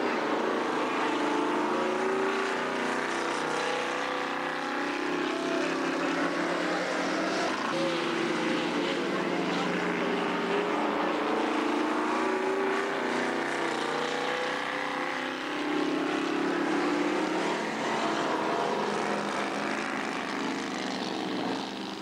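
Engines of speedway stock cars racing on a dirt oval: a continuous engine drone whose pitch rises and falls as the cars accelerate and pass.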